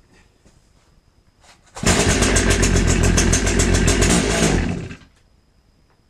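Stihl 034 two-stroke chainsaw starting and running for about three seconds with a rapid pulsing, then dying away. It will start but will not idle or keep running because its carburetor is gummed up with old varnished fuel.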